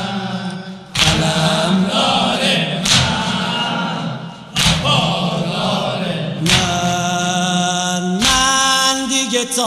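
Chorus of voices singing a Persian Shia mourning lament (noha), with a heavy thump about every two seconds keeping the beat.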